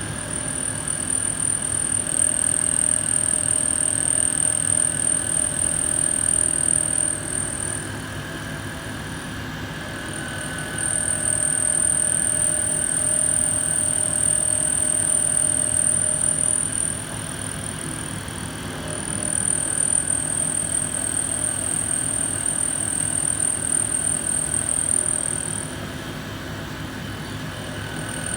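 Sieg SX2 mini mill, converted to CNC, running steadily while a 50 mm single-insert face mill takes a facing cut in aluminium. The cut comes in three louder passes of about six seconds each, each with a high whine, and quieter gaps between them.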